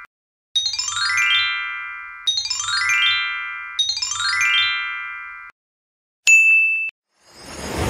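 A sparkling chime effect, a quick run of bright bell-like notes falling in pitch and ringing out, played three times in a row. A single high ding follows, then a rising whoosh that leads into music.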